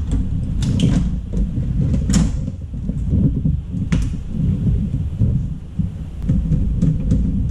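Scattered light clicks and knocks of a motherboard being fitted against a steel PC case and its I/O shield, over a steady low rumble.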